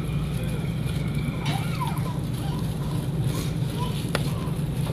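Restaurant background: a steady low hum with faint distant voices, and one sharp click about four seconds in.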